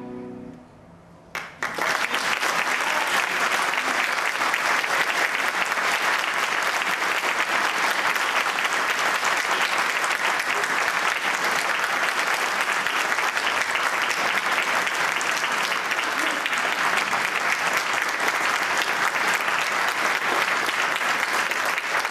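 The last chord of a choir and string ensemble dies away, and after a short pause an audience bursts into applause that keeps up steadily.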